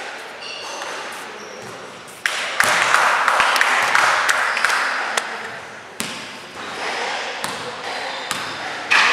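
A basketball bouncing on a sports-hall floor, a few sharp knocks that ring in the large hall. A loud stretch of voices and commotion starts about two seconds in and lasts a few seconds.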